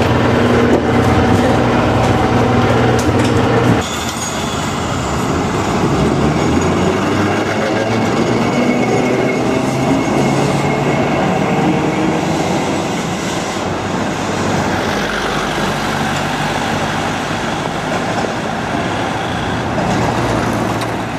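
Vintage Dalian streetcar: a steady hum inside the car, then, after an abrupt change about four seconds in, the tram heard from the street as it runs by on its rails, with road traffic.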